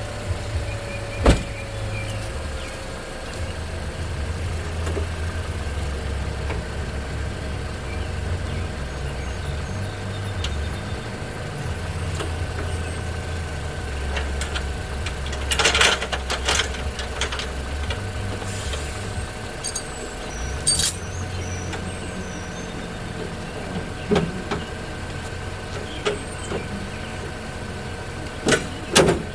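A car engine idling steadily, with a few sharp metallic clanks and knocks, one early, a couple in the middle, and a quick cluster near the end.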